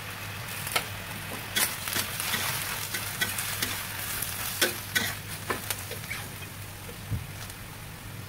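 Bok choy and carrot sizzling in a stainless steel wok while a metal spatula scrapes and clanks against the wok in quick strokes; the clanking stops about six seconds in, leaving the steady sizzle.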